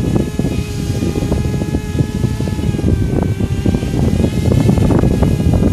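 Multirotor drone's motors and propellers humming in flight, the pitch wavering slightly as the motors adjust, under heavy wind buffeting on the microphone.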